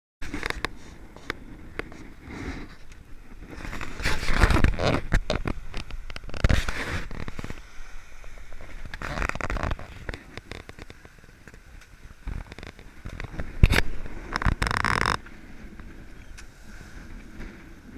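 Sailboat under way in choppy water: irregular rushes of wind on the microphone and water splashing along the hull, with scattered knocks and scrapes. The loudest surges come a few seconds in and again near the end.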